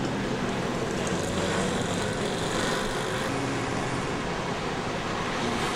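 Steady road traffic noise from a busy city street, with vehicle engines running.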